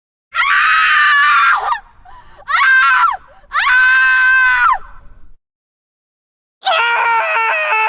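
Screaming sound effects: three high-pitched human screams in quick succession, each dropping in pitch as it ends, then after a pause of about two seconds a fourth, lower-pitched scream.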